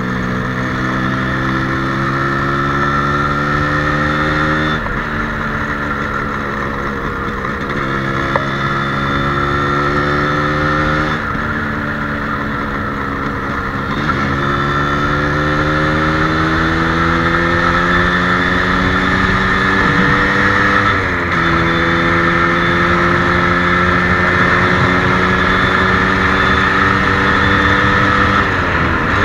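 Yamaha RXZ's single-cylinder two-stroke engine under way on the road. It climbs steadily in pitch, then drops sharply about six times as the bike changes gear.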